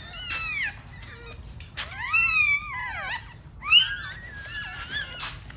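Newborn Shih Tzu puppies squealing and whining: several high-pitched cries that rise and fall in pitch, the longest about a second long near the middle, with short rustling snuffles between them.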